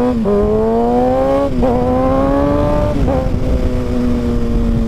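Kawasaki ZX-6R 636 sports bike's inline-four engine accelerating hard through the gears. There are three quick upshifts, each a brief drop in pitch followed by a rising climb, and then the engine holds a steady pitch for the last couple of seconds.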